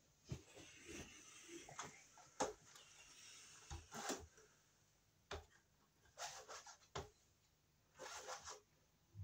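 Faint handling noise: scattered light knocks and short bouts of rustling, as a person moves about and handles things, with longer rustles about four seconds in and again near the end.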